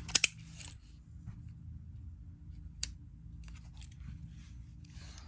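Two sharp clicks just after the start, then a steady low hum with a single faint click about three seconds in.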